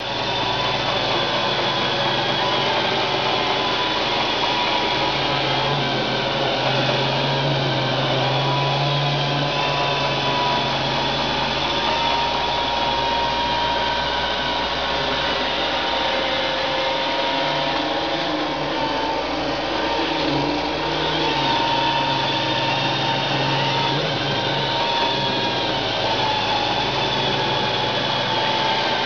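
iRobot Roomba 580 robot vacuum running as it cleans a bed: a steady motor whine over a low hum that shifts slightly in pitch now and then.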